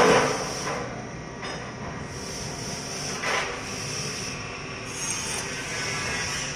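Steady hum of running machinery with a high hiss, broken by a sharp metal knock at the start and another about three seconds in as the machine's change parts are handled and fitted.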